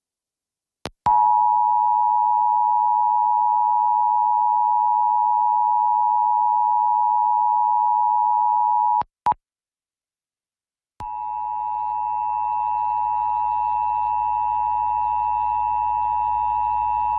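Emergency Alert System two-tone attention signal, about 853 and 960 Hz sounded together, held steady for about eight seconds and ending abruptly. After a short silence with a click, the same two-tone alert starts again with hiss and hum under it, as it is relayed through another station.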